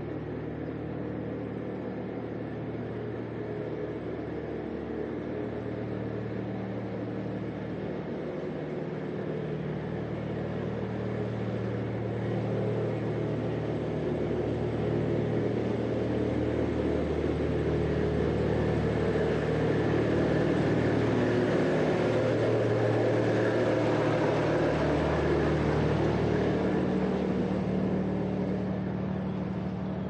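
A parked box delivery lorry running at a standstill: a steady low engine drone that grows louder toward the middle as it is passed and fades near the end.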